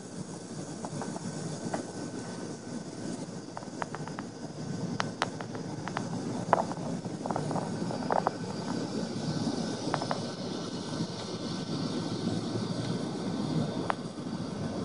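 Steady distant engine rumble outdoors, with a few short faint ticks scattered through the middle.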